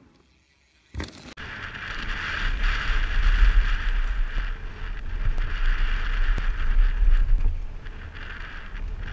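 Mountain bike descending a gravel trail at speed: wind buffeting a helmet-mounted camera's microphone over the rumble of tyres on loose gravel, with a few small clicks. It starts abruptly about a second in.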